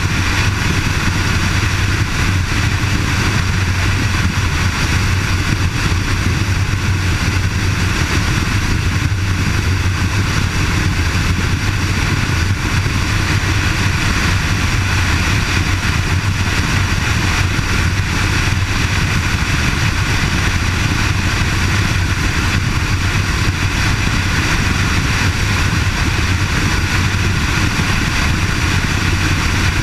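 Kawasaki KLR650's single-cylinder four-stroke engine running at a steady highway cruise, a constant low drone with no change in throttle, under a steady rush of wind and road noise.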